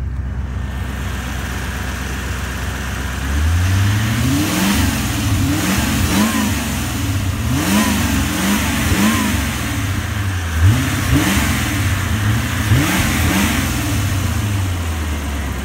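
1987 Chevrolet Corvette's 5.7-litre V8 idling steadily, then revved in a series of about eight or nine quick throttle blips starting about three seconds in, each rising and falling in pitch, before settling back to idle near the end.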